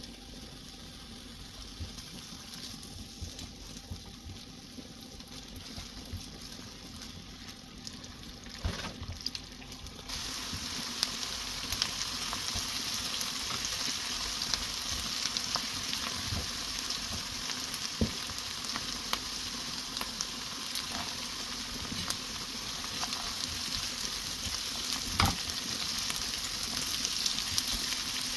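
Food frying in a pan: a steady sizzle that grows suddenly louder about ten seconds in, with occasional taps and scrapes of a stirring utensil.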